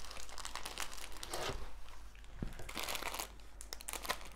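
Diamond painting canvas crinkling and crackling as hands smooth and handle it, its printed cover sheet rustling with many small crackles.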